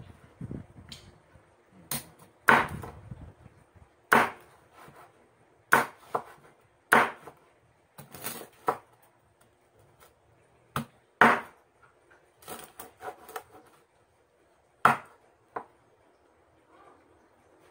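Large kitchen knife chopping grilled pork belly on a wooden cutting board: sharp, separate chops at an uneven pace, with short pauses between runs of strokes.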